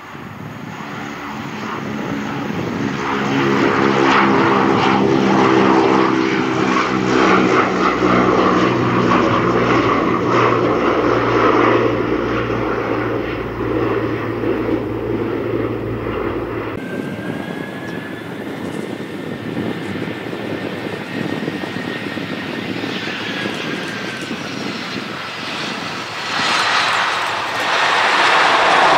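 Transall C-160 transport's two Rolls-Royce Tyne turboprops at climb power just after takeoff, a loud propeller drone with several steady tones, growing louder over the first few seconds. About two-thirds of the way through it cuts off abruptly to an Airbus A320-family airliner's jet engines, a rushing noise with a faint whine that swells toward takeoff power near the end.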